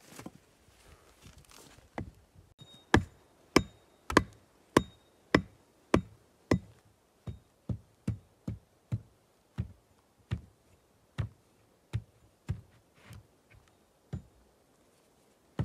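Steady hand hammering on wood: about twenty blows, roughly two a second. The hardest come a few seconds in, a brief ringing tone on some of them, and the blows grow lighter toward the end.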